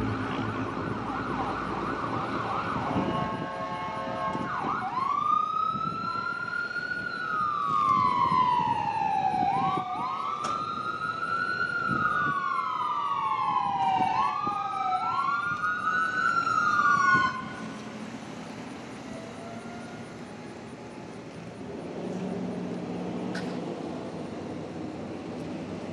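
Ambulance siren, first in a faster pulsing pattern, then a wail rising quickly and falling slowly, over and over, as the ambulance approaches. The siren cuts off suddenly about two-thirds of the way through, leaving a vehicle engine rumbling.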